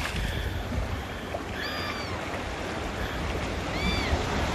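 Sea swell washing and foaming around the boulders of a rock breakwall, a steady rushing of water. Short high calls cut through it twice, about halfway in and near the end.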